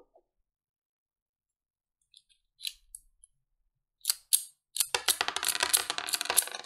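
Small metal pieces clinking and rattling: a few faint light clicks, two sharp clicks about four seconds in, then a dense, continuous jingling clatter.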